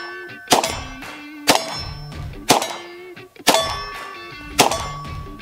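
Sharp metallic clangs about once a second, each ringing on and fading, with low pitched tones between the hits.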